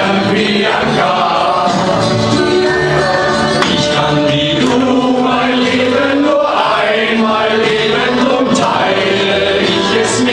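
Several men singing a song together in chorus, one into a microphone, over accompanying music.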